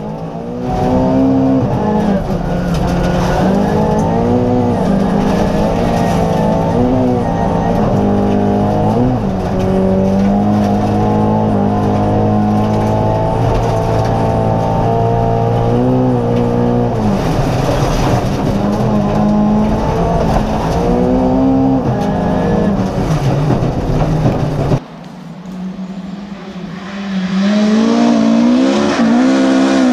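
Volvo 240 rally car's engine revving hard through the gears at full attack, its pitch climbing and then dropping at each shift. About 25 seconds in the sound drops sharply and thins for a couple of seconds, then the engine revs up again.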